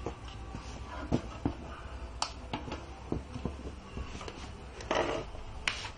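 A few sharp clicks and knocks over a low steady hum, with a brief rustling burst about five seconds in.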